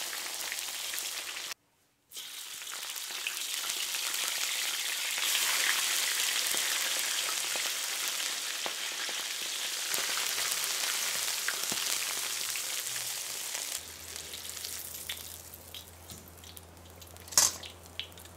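Crumbed chicken wings deep-frying in lard in a wok: a steady, loud sizzle of hot fat. It cuts out briefly about two seconds in and drops much quieter about fourteen seconds in, leaving scattered crackles and one sharp click near the end.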